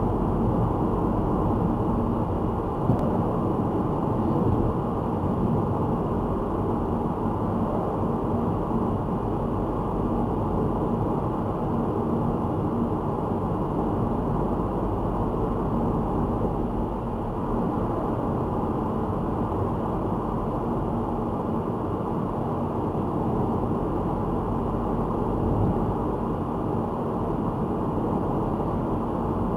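Steady road and engine noise inside a car cruising at about 42 mph, picked up by the Mio MiVue C570 dash camera's built-in microphone, with a low steady hum under it. A single short tap about three seconds in.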